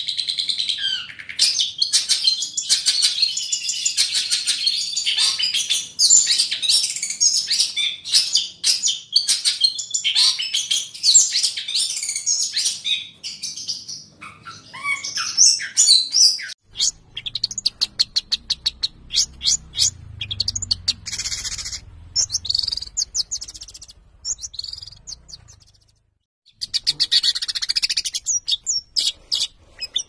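Long-tailed shrike (cendet) singing a fast, chattering song of high notes. It is dense at first, turns sparser about halfway with a faint low rumble under it, pauses briefly near the end, then starts again in a rapid burst.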